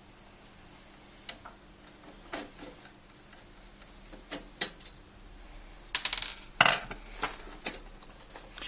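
Scattered small metal clicks and clinks, with a quick cluster of them about two-thirds of the way in, as a screwdriver works out the screws holding the hard drive in a desktop PC case.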